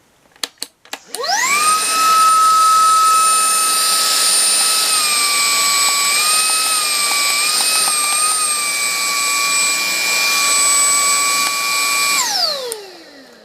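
A few handling clicks, then a 21-volt cordless vacuum cleaner's motor is switched on. It spins up to a steady high whine with a rush of air, wavers slightly in pitch midway, and near the end is switched off and winds down with a falling whine.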